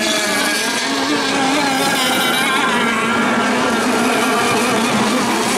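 T-boat racing outboard engine running at high revs, its pitch wavering slightly.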